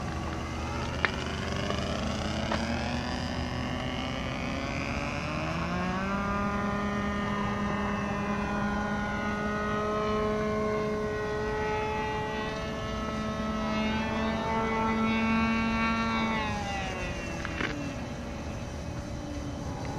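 Radio-controlled Zlin Z-50 model plane flying, its motor and propeller giving a steady pitched drone. The pitch climbs about six seconds in, holds, then drops off about sixteen seconds in.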